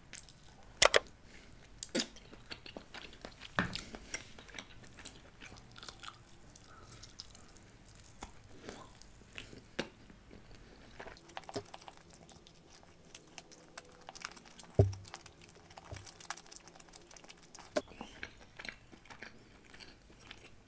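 Close-miked chewing and biting of barbecued chicken wings: irregular sharp clicks, smacks and mouth sounds as the meat is torn from the bone and chewed, with one louder thump about fifteen seconds in.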